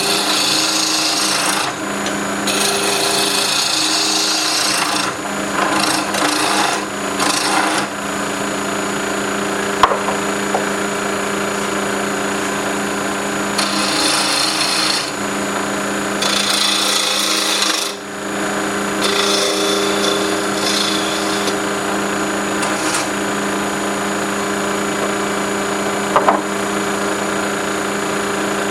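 Wood lathe running with a steady motor hum while a turning tool cuts a spinning stabilized buckeye burl pen blank; the scraping hiss of the cut comes and goes as the tool is worked along the blank, with a couple of sharp clicks.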